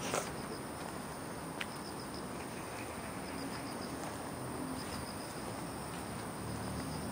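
Faint, high insect chirping, pulsing steadily over a low outdoor background hum, with a small click about a second and a half in.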